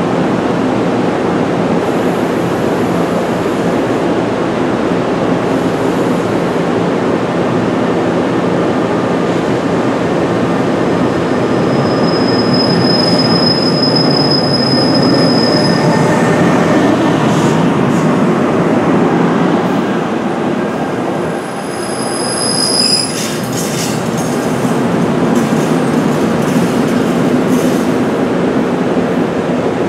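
NJ Transit electric train of double-deck multilevel coaches pulling out along the platform, with a steady rumble of wheels on rail. Thin high wheel squeals come in about 12 seconds in and again around 22 seconds.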